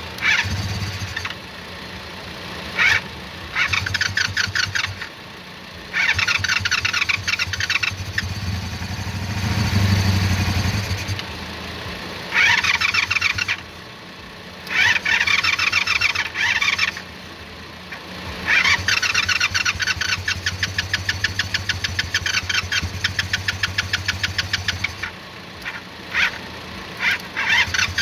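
Motorcycle engine cranked and firing in repeated short runs of a few seconds each, with the longest run about two-thirds of the way in, over a steady low hum. It is being started without its bad starter solenoid, on a leaking carburetor.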